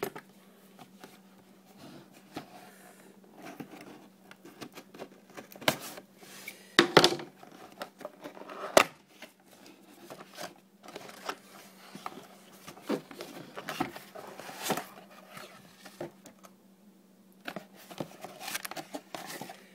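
Cardboard CPU retail box being opened and unpacked by hand: irregular taps, knocks and rustles of cardboard and paper, with the loudest knocks about seven and nine seconds in.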